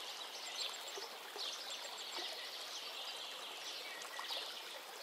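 Faint outdoor ambience: a steady hiss with light bird chirps.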